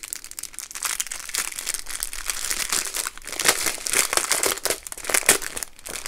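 Clear plastic packaging crinkling and rustling in the hands as a packaged strip of diamond-painting drills is handled and taken out of its bag. The rustling comes in irregular bursts and gets louder about halfway through.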